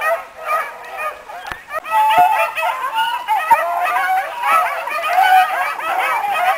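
A pack of bluetick hounds baying while running, many voices overlapping. The chorus thickens and grows louder about two seconds in.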